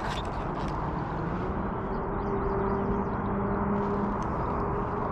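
Motorboat engine running steadily, a low even hum settling in about a second in over a constant rough rush.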